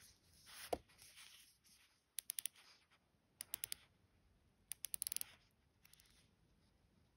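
Rotating bezel of a Citizen ADEC dive watch turned by hand, clicking in quick runs of four or five clicks, four times over. Before the clicks, fingers rub and give one knock while gripping the watch, the loudest sound here.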